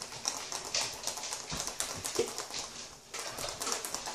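Small plastic surprise egg being handled and prised open: a run of light plastic clicks and taps, with small rattles from the toy inside.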